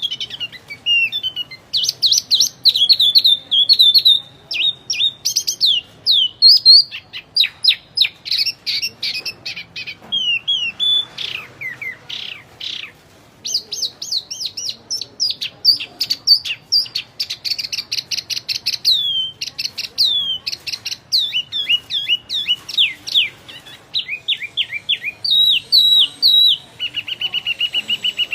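A wambi, a small songbird, singing continuously in full voice: a rapid, varied run of sharp whistled notes and quick downward-sliding chirps, ending in a fast trill.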